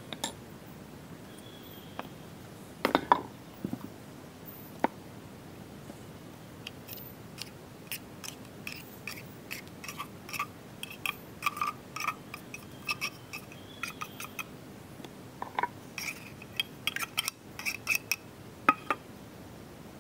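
A metal spoon scraping and clinking against an opened tuna tin and tapping on a glass bowl as the tuna is scooped out, in a run of irregular short clicks and ringing clinks. The loudest knocks come about three seconds in and again near the end.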